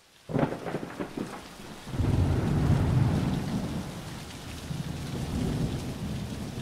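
Thunderstorm: steady rain pattering, with a deep rumble of thunder swelling about two seconds in, easing off, and rolling again more softly near the end.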